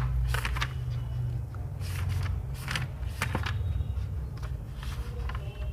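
A handful of short, sharp rustling or scraping sounds at irregular intervals over a steady low hum.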